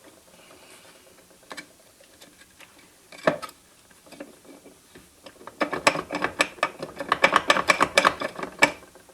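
Metal transmission parts being handled: a single knock about three seconds in, then about three seconds of rapid ratcheting clicks as the 700R4's low/reverse inner race is turned and worked out of its roller clutch.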